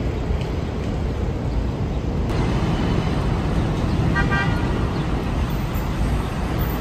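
Steady low rumble of city street traffic, with a short car-horn toot about four seconds in.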